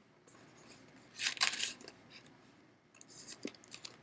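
A short rustle about a second in, then a run of faint, irregular clicks and crackles near the end.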